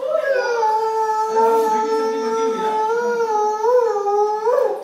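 A child holds one long hooting note, steady in pitch, that wobbles near the end and then stops.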